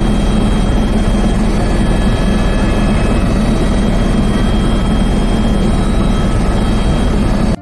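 Steady, loud helicopter engine and rotor noise heard from on board, a constant drone with a strong low hum.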